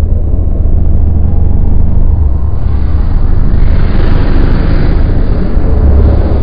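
Science-fiction spaceship engine sound effect: a loud, deep, steady rumble, with a rushing swell from about three seconds in as the ship passes close by, easing near the end.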